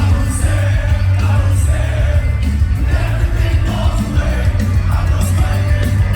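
Live metalcore band playing loud and full, with heavy bass and drums, cymbal crashes recurring about every second, and vocals over the top.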